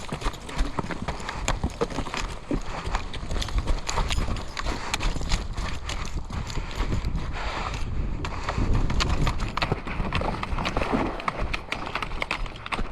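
Footsteps of a player on the move, with many quick irregular knocks and clicks of gear rattling.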